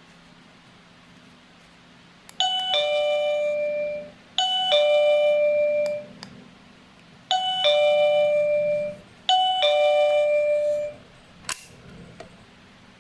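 Wireless doorbell chime unit playing a two-note ding-dong four times, in two pairs, each chime a short higher note falling to a longer lower one. A sharp click about eleven and a half seconds in.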